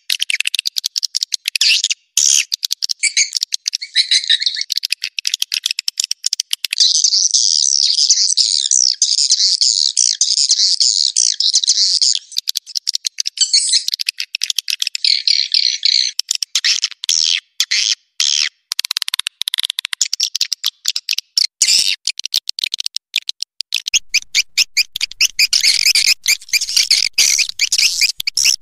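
Swiftlets chattering in dense, rapid, high-pitched chirps and twitters that cut in and out abruptly. This is a swiftlet call recording ('panggil inap'), played to lure swiftlets in to roost and nest in a swiftlet house.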